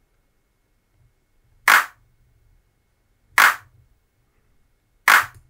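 A short, sharp sound effect played by a p5.js sketch three times, about 1.7 seconds apart. Each play marks the moving circle bouncing off the edge of the canvas.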